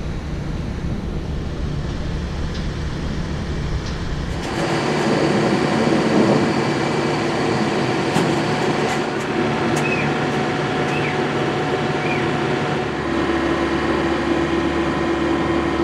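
A steady mechanical hum over a noisy background, shifting in character about four seconds in, with a few short high chirps and faint clicks later on.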